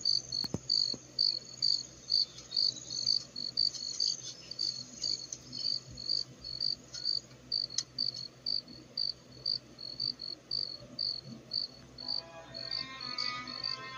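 Crickets chirping in an even rhythm, about two high chirps a second. Soft music comes in near the end.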